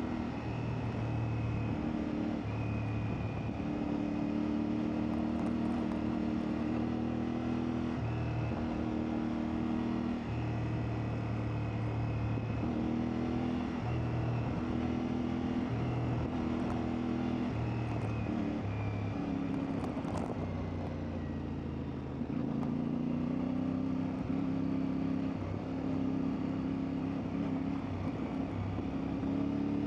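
CfMoto 450MT's parallel-twin engine running while being ridden, its pitch stepping up and down with throttle and gear changes. It eases off briefly about two-thirds of the way through, then picks up again.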